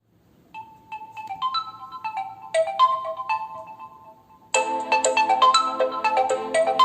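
Realme 6 smartphone ringtone playing: a melody of short, bright struck notes begins about half a second in, and a fuller, louder accompaniment joins about four and a half seconds in.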